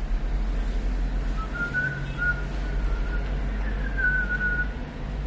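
Whistling: a short, wavering tune in a high pitch, starting about a second and a half in, over a low steady hum.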